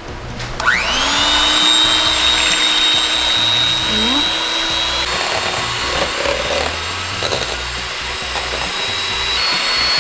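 Electric hand mixer whipping egg whites in a stainless steel bowl. Its whine rises as the motor spins up about half a second in, then it runs steadily, with a slight step in pitch about halfway through.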